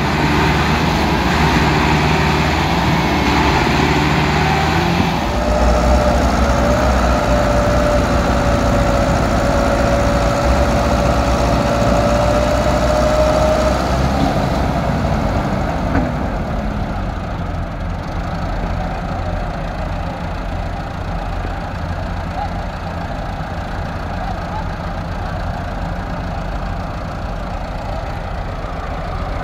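Diesel farm tractor engines running hard while hauling a loaded trolley stuck in mud, with a thin high whine held steady for several seconds in the first half. About halfway through, the engine sound turns duller and a little quieter, and one sharp click stands out a couple of seconds later.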